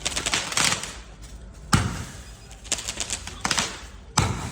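Aerial fireworks bursting: a loud boom about two seconds in and another near the end, with bursts of rapid crackling between them.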